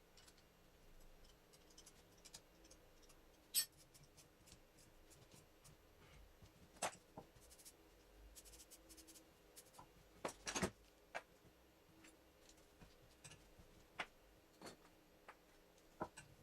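Scattered sharp clicks and taps of hand tools and small metal alternator parts being handled, over near-silent room tone. The loudest click comes about three and a half seconds in, and a quick cluster follows about ten seconds in.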